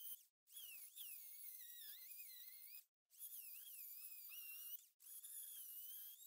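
Straight pencil die grinder with a small burr milling the aluminium skirt of a scooter piston: a faint, high-pitched whine whose pitch wavers up and down as the tool cuts. It breaks off abruptly for a moment three times.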